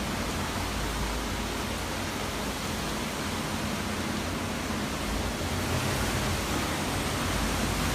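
Hurricane-force wind in a hurricane's eyewall, a steady rushing roar of noise that swells slightly in the second half.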